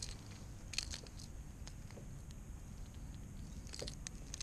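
Scattered light clicks and rattles of metal pliers against a hooked fishing lure as the hooks are worked out of a small trout, over a low steady rumble.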